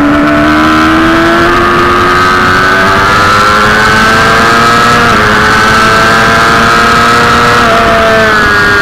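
Sport motorcycle engine at full throttle, its pitch climbing steadily with brief dips at quick upshifts about 1.5, 5 and 7.5 seconds in. The pitch falls near the end as the bike slows. Loud wind rush runs under it.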